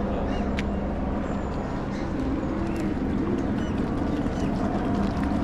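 Steady outdoor background hubbub with indistinct voices of people nearby.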